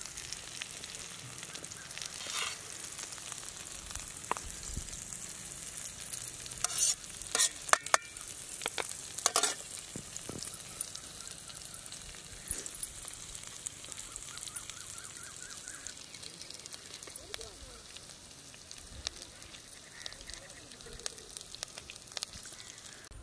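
Oil sizzling steadily in a kadai with spice-coated pomfret frying, with a run of sharp clicks and pops about six to ten seconds in.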